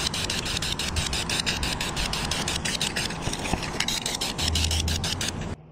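Aerosol spray can of black wheel paint hissing steadily as a light coat goes onto a motorcycle wheel, cutting off suddenly near the end when the nozzle is released.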